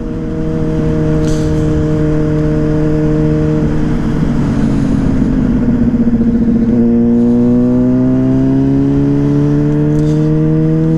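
Yamaha Fazer 600's inline-four engine with a WR slip-on exhaust, running at a steady speed, then dropping in pitch for a few seconds before pulling again from about seven seconds in with a steadily rising note as the bike accelerates.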